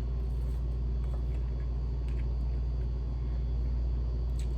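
A steady low rumble, with a couple of faint clicks near the end.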